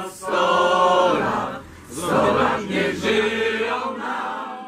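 A group of voices singing together in chorus, holding long notes in two phrases with a short breath between them, growing quieter near the end. The raised cups point to a drinking song at a toast.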